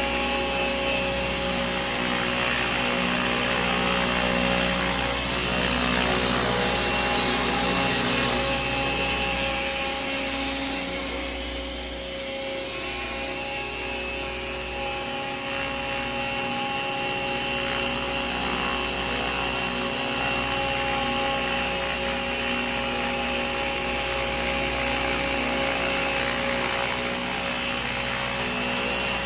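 Radio-controlled model helicopter (Align T-Rex 600 in a scale Eurocopter EC145 body) flying, a steady whine of rotor and drive. It dips a little in loudness about halfway through, then holds steady again.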